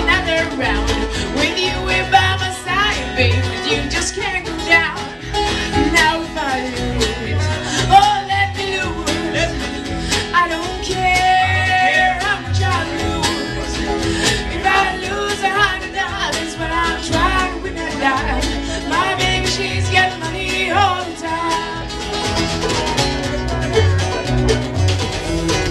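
Live bluegrass band playing: banjo and acoustic guitar picking over an upright bass line, with singing.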